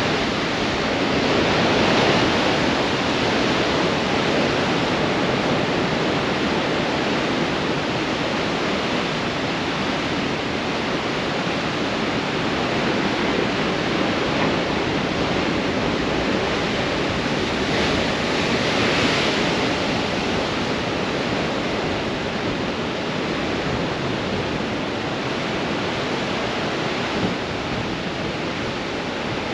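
Storm waves breaking against rocks in a strong wind: a steady rush of surf and wind that swells louder about two seconds in and again about nineteen seconds in.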